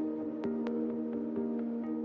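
Background music: soft ambient electronic track with held synth chords and light, regular percussive ticks.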